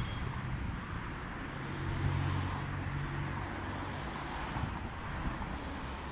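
Steady low vehicle rumble with wind buffeting the microphone; a low hum swells about a second and a half in and fades about two seconds later.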